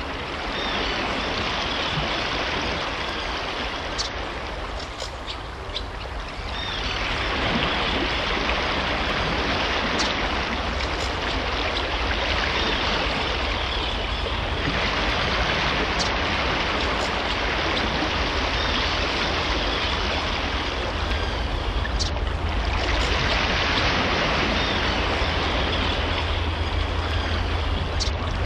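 Steady rush of flowing water, like a stream, a little quieter for a few seconds early on and then fuller.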